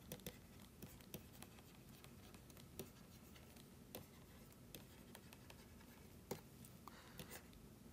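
Near silence with faint, scattered taps and scratches of a stylus writing on a tablet.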